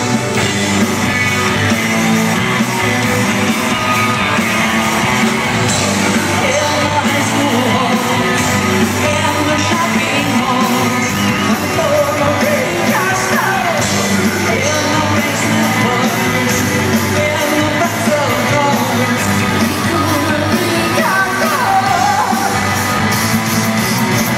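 Live rock band in full swing, with guitar, bass, drums and keyboards under a male lead vocal, recorded from the audience in an arena.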